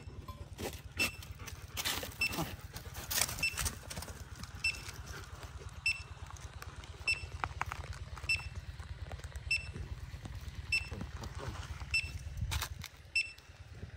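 A short, high electronic beep repeating evenly about every 1.2 seconds over a steady low hum, with scattered knocks and scrapes in the first few seconds.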